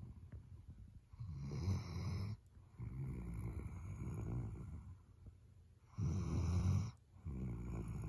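A sleeping Weimaraner snoring, its breaths rattling in a slow rhythm. A loud rasping snore comes about a second in and again about six seconds in, each followed by a longer, softer snore.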